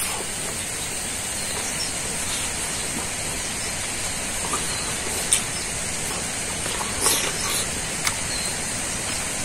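Steady hiss of background noise with a few brief, soft mouth sounds of someone chewing and smacking while eating rice by hand.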